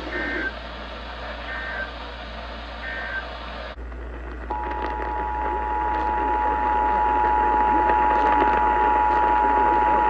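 Emergency Alert System end-of-message code: three short two-pitch digital data bursts over radio hiss. After a sudden cut about four seconds in, the steady two-tone EAS attention signal starts and holds.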